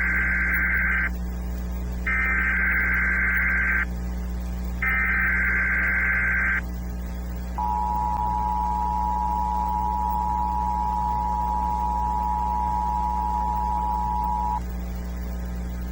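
Emergency Alert System tones for a Required Monthly Test. First come three bursts of the SAME header's buzzing digital data tones, each nearly two seconds long with short gaps between. Then the steady two-tone attention signal sounds, held for about seven seconds before cutting off.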